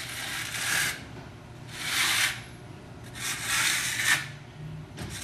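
Magic trowel scraping across a wet coat of QuarryStone textured plaster: three long strokes of about a second each, with short pauses between them.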